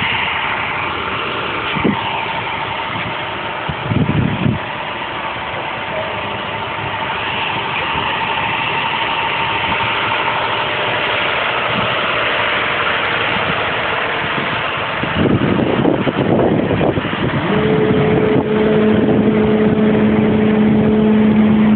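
Vehicle engine and traffic noise running steadily. Towards the end it gets louder and a steady low engine drone comes in.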